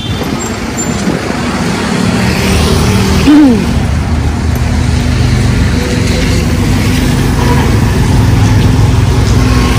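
A motor vehicle's engine running steadily close by, a constant low rumble, with a brief voice a little over three seconds in.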